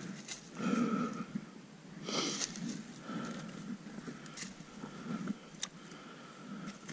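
A man breathing hard after dropping a motorcycle, a string of heavy breaths, with a couple of sharp clicks.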